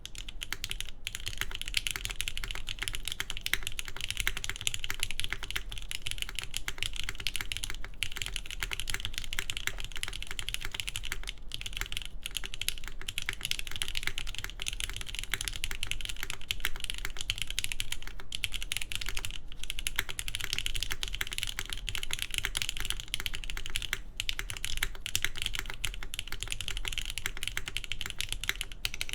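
Continuous fast typing on a mechanical keyboard with lubed Gateron Milky Top Yellow linear switches, a polycarbonate plate and GMK keycaps, the key clicks coming in a dense, even stream with a few brief pauses.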